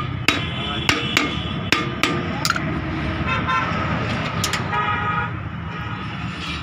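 Sharp clinks and taps of hand tools working at a vehicle's rear drum brake, several in the first two and a half seconds and two more a little past the middle, over a steady low rumble with vehicle horns honking in passing traffic.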